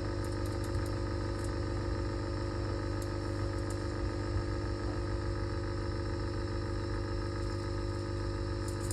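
Steady low drone of small motor-driven bench equipment, an even hum that doesn't change, with a few faint light ticks of tools on top.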